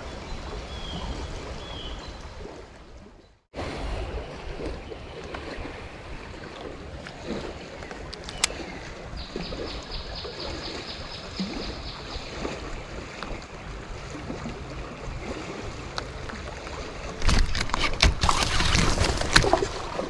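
River water running steadily, with a brief gap about three and a half seconds in and a louder stretch of rough noise near the end.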